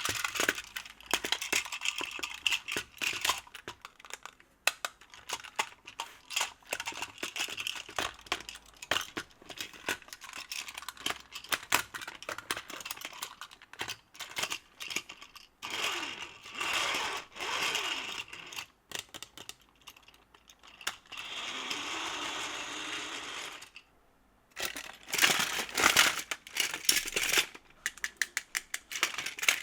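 Battery-powered Plarail toy trains running on plastic track, with fast irregular clicking and rattling of wheels over the track joints. A steadier rushing sound lasts about two seconds past the middle, and the clicks are loudest a few seconds later.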